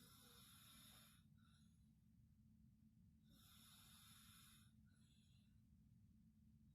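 A person snoring very faintly: slow, breathy snores about every three and a half seconds, each lasting over a second and followed by a shorter, softer breath.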